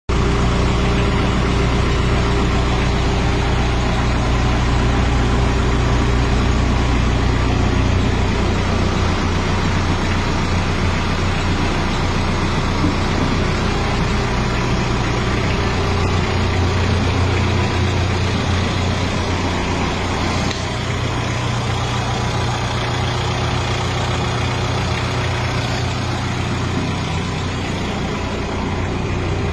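Hyundai Porter II light truck's engine idling steadily.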